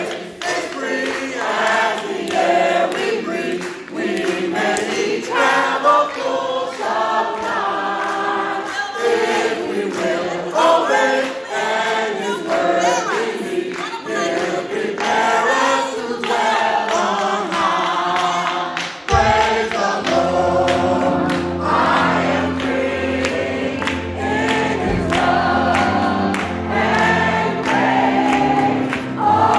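Gospel worship song sung by a group of voices, with leaders on microphones and the congregation singing along. About two-thirds of the way through, low steady bass notes come in under the singing.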